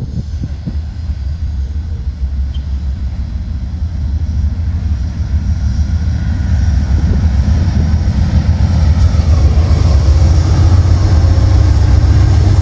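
Two Amtrak GE P42 diesel locomotives, each with a 16-cylinder engine, approaching and passing close by: a deep engine rumble with growing wheel-on-rail noise, getting steadily louder as the train arrives.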